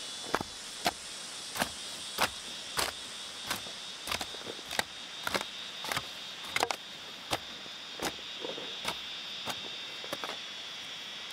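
Hoe blade chopping and scraping into loose soil in a steady rhythm, about three strikes every two seconds, with soil sliding down the slope. A steady high-pitched drone runs underneath.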